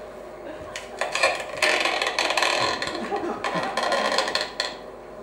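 A long latex modelling balloon being rubbed and squeezed, giving a dense run of rasping squeaks from about a second in until near the end.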